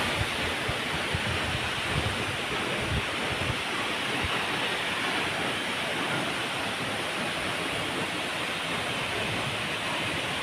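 Steady rushing of Aw-asen Falls, water pouring and splashing without a break, with a few low bumps in the first few seconds.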